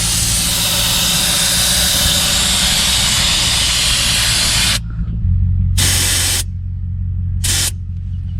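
Air hissing out of a 4WD tyre's valve as it is let down for rough road, then cut off abruptly about five seconds in, followed by two short hisses. A low steady hum runs underneath.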